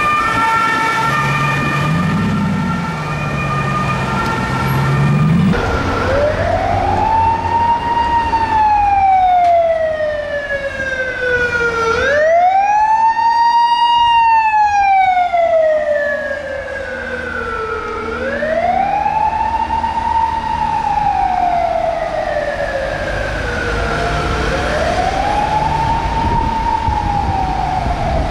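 Police sirens. For the first five seconds a Belgian police car's siren switches between fixed tones. Then an unmarked Hyundai i30 police car's wail siren takes over, rising and falling slowly, about one sweep every six seconds.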